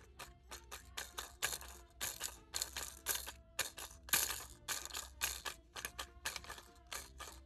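Small plastic Anpanman toy juicer-mixer worked by its push button, with the little plastic fruit pieces clattering and rattling against its clear plastic jar. It makes an irregular string of sharp clicks and rattles, several a second.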